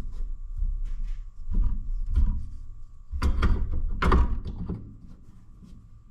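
Metal parts of an old tractor hydraulic valve knocking and clunking as they are handled and the cap is fitted on by hand. There are several light knocks, then two heavier clunks about three and four seconds in.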